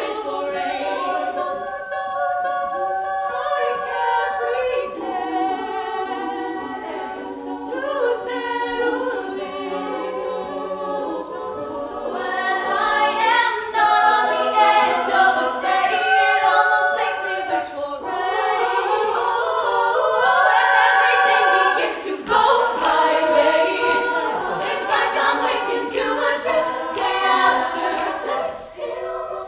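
All-female a cappella group singing in close harmony with no instruments, swelling louder about halfway through.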